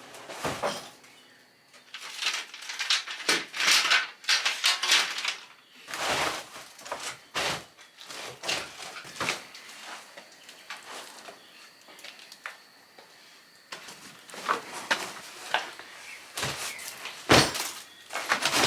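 A string of separate knocks, clicks and short scraping noises, irregularly spaced, like objects being handled and set down.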